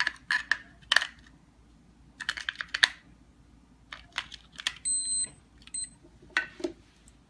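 Batteries clicking and rattling as they are pressed into the keypad door lock's battery holder, in several bursts. About five seconds in the lock's electronics give a short high beep, then a second shorter one, as power returns.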